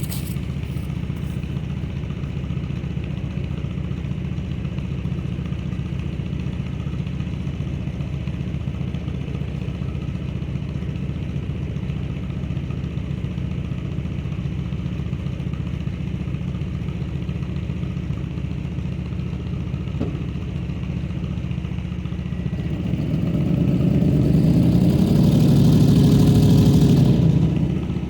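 The Honda Accord's 4.6 engine runs steadily at idle, then about five seconds before the end revs up for several seconds as it tries to pull the backhoe, and drops back to idle.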